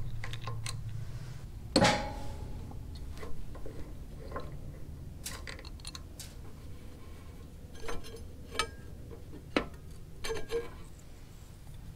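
Scattered light metal clicks and clinks of hand work on a motorcycle's front brake caliper: a socket ratchet and the two caliper bolts being removed, then the caliper being worked off the disc. The sharpest clink comes about two seconds in, with a few more near the end.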